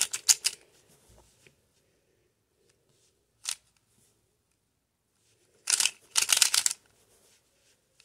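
Plastic 3x3 speed cube being turned by hand, its layers clicking as they snap round: a quick run of turns at the start, a single click about halfway, and another quick run of turns late on.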